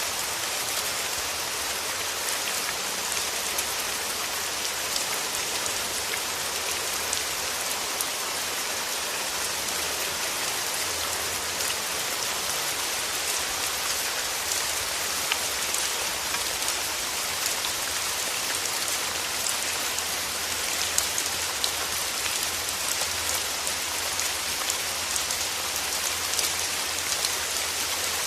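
Steady rain falling and pattering on surfaces, with many small individual drop ticks over a constant hiss.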